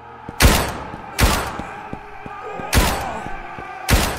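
Four single shotgun blasts at uneven intervals, each followed by a ringing echo.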